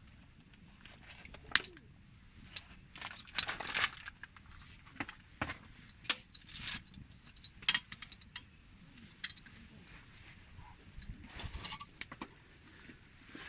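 Camping gear being handled: scattered light metallic clicks and clinks mixed with short rustles and scrapes at irregular times.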